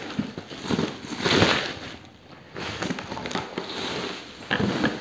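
Clear plastic stretch film crinkling and rustling as it is pulled off a cardboard box, in irregular bursts with a few sharp crackles.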